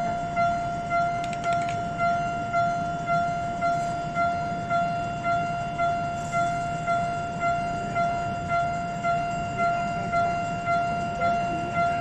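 Japanese railway level-crossing warning bell ringing its steady "kan-kan" alarm, one pitched ding about twice a second, repeating evenly.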